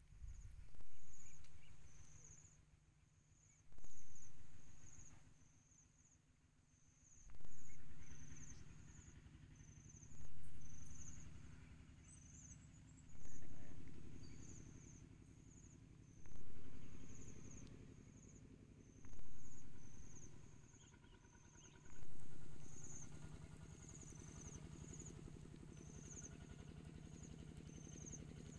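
Insects chirping in a steady high-pitched rhythm, about two chirps a second, over a louder low sound that swells and fades roughly every three seconds.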